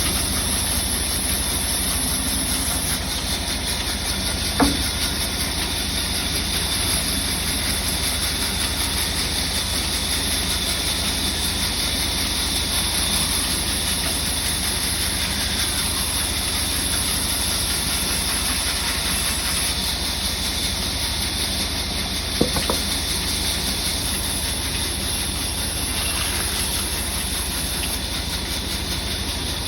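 Sawmill wood-cutting saw running steadily with a constant low hum and hiss. Two sharp knocks come through, one about five seconds in and one a little past twenty-two seconds.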